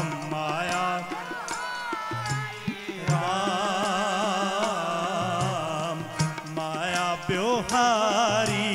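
Sikh kirtan: harmonium and tabla playing under a singer's long, wavering held notes, with the drum strokes running through.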